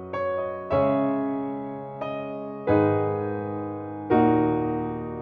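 Slow piano music: chords struck every second or so, each ringing and fading away.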